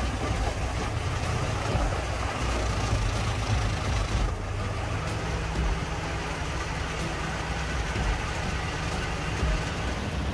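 Heavy diesel-powered wood chipper running steadily: a constant low engine drone under a broad rushing noise, with no clear breaks.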